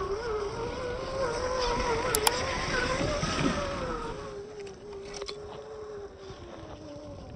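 Electric motor and gearbox of a Traxxas TRX-4 Defender RC crawler whining as it drives over rough ground, the pitch wavering with the throttle and slowly falling over the last few seconds.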